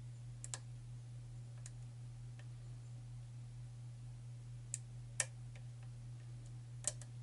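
Small, sharp metallic clicks of a lock pick working the pins inside a pin-tumbler challenge lock with a tight paracentric keyway: a pair about half a second in, then single clicks, the loudest about five seconds in. A steady low hum runs underneath.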